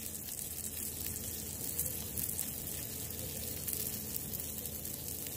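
Ribeye steaks sizzling steadily on a camp stove's hot griddle, a continuous crackling sizzle of searing meat.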